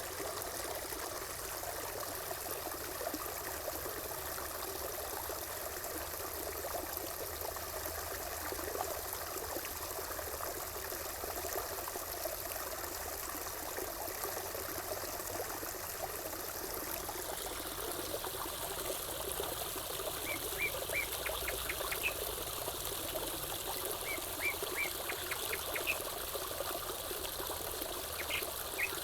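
Water trickling and splashing steadily, as from a small stream or water feature. In the last third, a small bird chirps in short quick runs over it.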